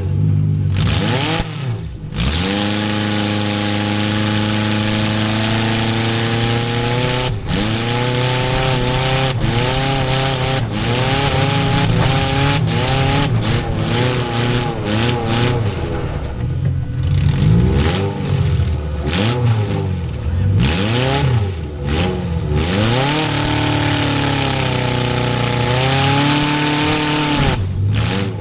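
Demolition derby car engines revving hard, the loudest one's pitch repeatedly climbing, holding and falling back every second or two over a steady low engine drone and a constant hiss.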